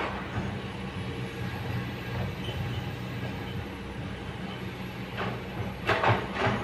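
Kobelco hydraulic excavator's diesel engine running steadily under working load as the boom and arm move. A few sharp knocks and scrapes come near the end, as the bucket works earth and stones.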